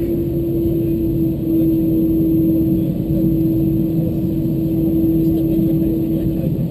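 Airbus A320-214's CFM56 jet engines running at low power on the ground, heard from inside the passenger cabin over the wing: a steady rumbling hum with one constant droning tone.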